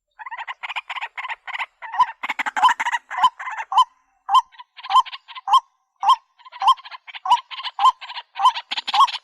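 White-breasted waterhen (dahuk) calling loudly: a rapid run of harsh croaking notes with a hooked note repeating about twice a second, broken by two brief pauses.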